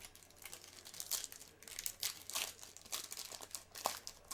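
Crinkling of a foil trading-card pack wrapper, handled in short, irregular rustles, as in opening a pack.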